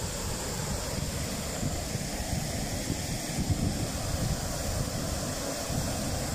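Steady rush of river water pouring over a low weir, with wind buffeting the microphone.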